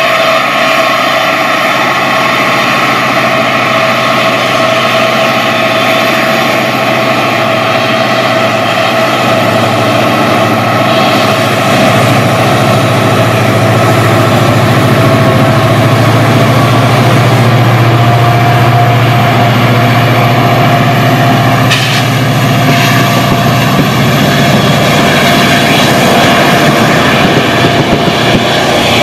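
EMD WDP4 diesel-electric locomotive's two-stroke V16 engine working hard as it hauls a passenger train past, a heavy engine sound with a steady whine above it, louder about halfway through. Near the end the coaches roll by and their wheels clatter.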